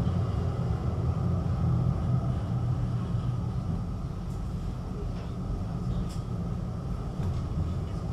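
Inside a Duewag GT8 eight-axle articulated tram: steady low running rumble of the car on the rails, with a few faint clicks.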